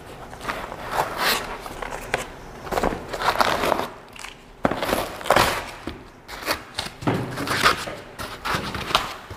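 Packing materials being handled out of a cardboard carton: irregular rustling and scraping of plastic bags, foam and cardboard, with a sharp knock about halfway through as something is set down.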